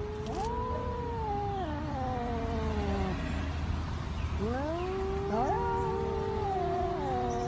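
Two cats yowling at each other in a face-off, a warning standoff. There are two long, wavering yowls: the first lasts about three seconds from the start, and the second begins about halfway through.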